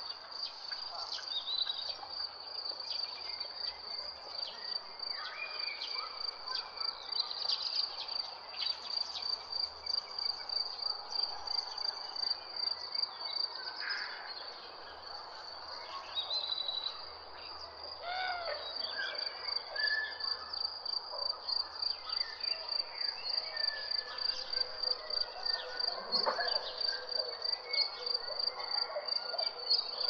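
An insect trilling steadily in a rapid run of high-pitched pulses, while several birds chirp and call on and off over it.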